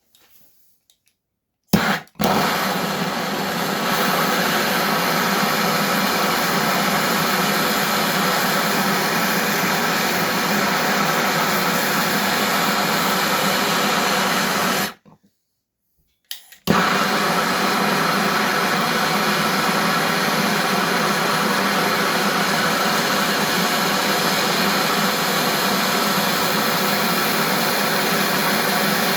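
Gas blowtorch flame burning with a steady rushing roar while it heats a seized bolt that has an extractor in it, to free the bolt. The flame lights with a sharp burst about two seconds in, cuts off suddenly about 15 seconds in, and relights with another burst a second and a half later.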